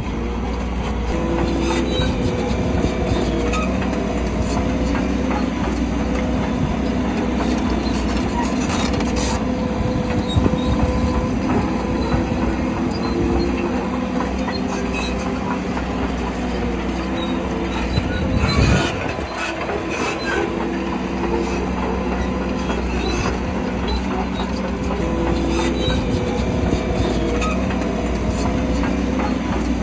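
Shantui crawler bulldozer working: its diesel engine runs steadily under load while the steel tracks squeal and clatter. A brief loud knock comes about two-thirds of the way through.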